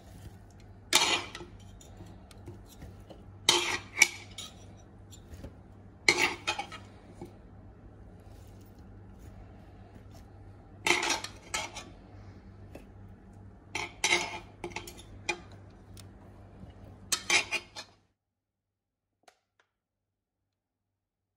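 Cutlery clinking against a ceramic salad bowl in short clusters every few seconds, about six times, as the salad is tossed, over a low steady hum. The sound cuts off to silence near the end.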